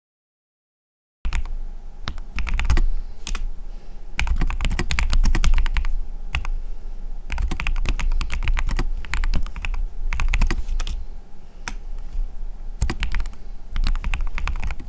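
Mechanical keyboard with lubed switches being typed on at a steady pace: dense, irregular key clacks with short pauses. The typing starts about a second in, after total silence.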